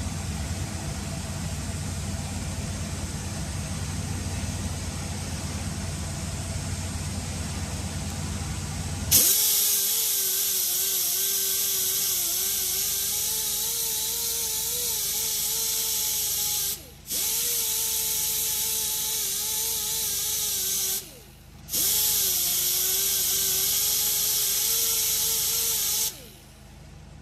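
An air-powered tool runs with a loud hiss and a whine that wavers slightly in pitch, in three runs separated by two short pauses. For about the first nine seconds there is a steady low hum.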